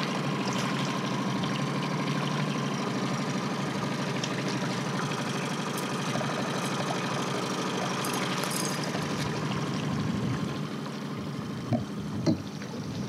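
Mercury outboard motor running steadily at trolling speed, with water splashing and dripping as a hooked trout thrashes at the surface and is netted beside the boat. The motor sound drops off near the end, where two sharp knocks come as the net comes aboard.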